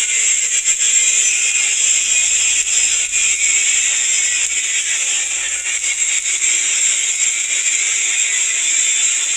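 Flux-cored arc welding arc crackling and hissing steadily as a bead is run.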